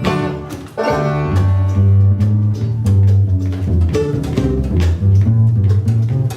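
Acoustic bluegrass band of mandolin, guitar, upright bass and banjo playing an instrumental stretch between spoken verses. The upright bass is prominent, stepping from note to note under plucked strings.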